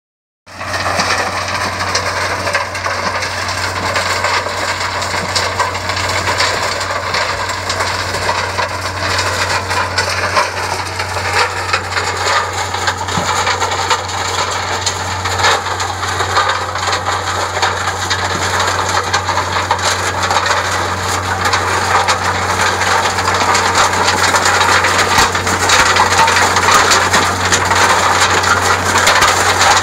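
Ultra T1500 tracked trommel screen running: soil and stones tumbling and rattling in the rotating mesh drum in a dense clatter of small knocks, over a steady low engine hum. The rattle is louder near the end.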